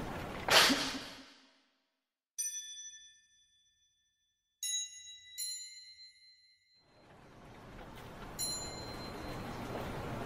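A short, loud rush of noise, then dead silence in which bell-like chime notes strike three times and ring out. The background returns with one more chime: a film sound-design cue of bright bell tones.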